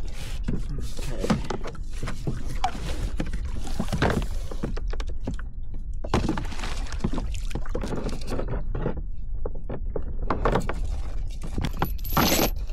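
Gear being handled in a plastic kayak: scattered knocks and clatter from a plastic tub and tackle, then a metal chain rattling loudly near the end, over a steady low rumble.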